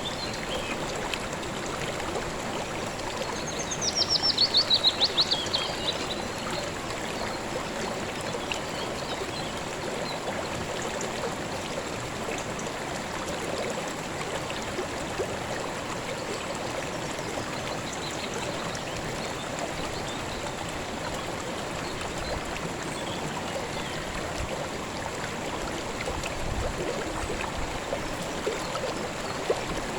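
River water flowing steadily. About four seconds in, a bird sings a quick trill of high notes that step down in pitch, louder than the water, lasting under two seconds.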